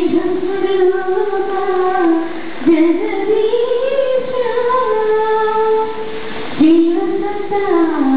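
A woman singing solo into a microphone, a slow melody of long held notes in three phrases, the middle one rising to a high note and then sliding down.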